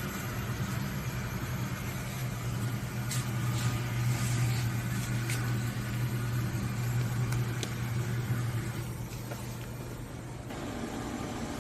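Commercial automatic noodle-making machine running with a steady low motor hum and a few light clicks, then stopping about ten and a half seconds in.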